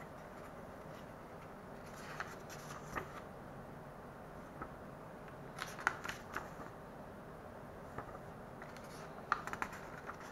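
Pages of a paper instruction booklet being turned and handled: short spells of rustling with crisp paper clicks, about two seconds in, around six seconds, and again after nine seconds, over a steady faint hiss.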